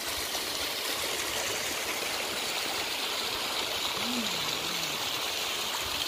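Stream water rushing and splashing over rocks in a small cascade, a steady even rush.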